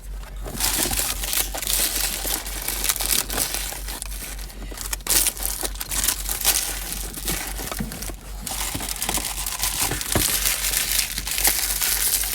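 Plastic trading-card packaging crinkling and crumpling as it is handled, with a continuous run of small crackles and a steady low hum underneath.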